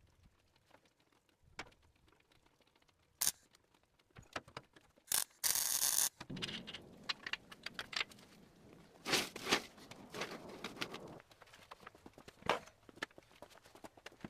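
Irregular clicks and metallic clinks, with a loud rushing burst lasting about a second near the middle and a shorter pair of bursts about three seconds later.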